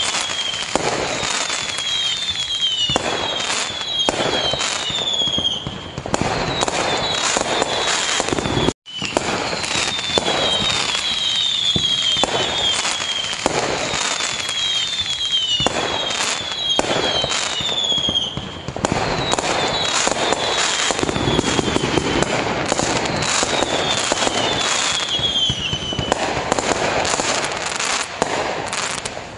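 Fireworks display: a dense, continuous barrage of bangs and crackling bursts, with clusters of short falling whistles every few seconds. The sound cuts out for a split second about nine seconds in.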